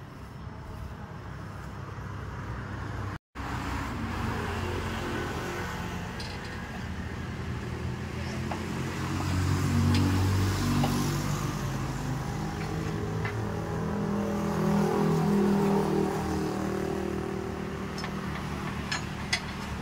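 A motor vehicle engine running, its pitch rising and falling as it revs, with a few sharp metallic clicks near the end.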